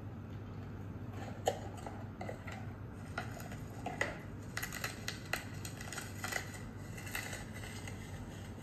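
Light, irregular clicks and taps of takeout food containers and wooden chopsticks being handled: a foam box and a paper noodle bowl. A low steady hum runs underneath.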